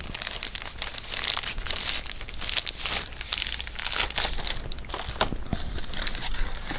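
Thin plastic bags crinkling and rustling in irregular crackles as graded comic books in hard plastic slabs are pulled out of them and lifted from a cardboard shipping box.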